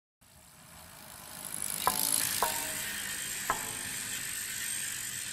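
Logo-intro sound effect: a hissing whoosh that swells up from silence over the first two seconds and then holds steady. Three short, sharp clicks, each with a brief ringing tone, come about two, two and a half, and three and a half seconds in.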